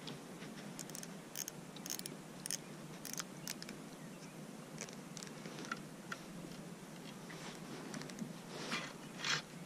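Faint, irregular clicking of a fishing reel while a hooked bass is played on the rod, with a brief rustle near the end.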